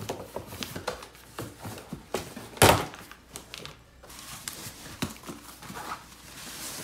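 A large cardboard shipping box being handled and opened: a run of knocks and scrapes of cardboard, with one loud thump a little under three seconds in, then rustling of the opened flaps and the contents near the end.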